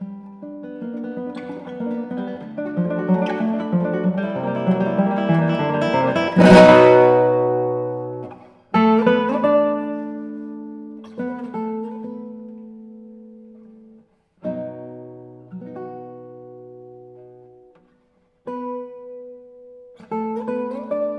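Background music on acoustic guitar. Picked notes build to a loud strummed chord about six seconds in, then single chords are left to ring out and fade, with short pauses between them.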